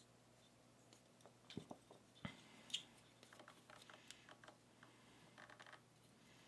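Faint, scattered clicks and light taps of small metal lock parts being handled as a padlock is taken apart, a few sharper ticks standing out between one and three seconds in.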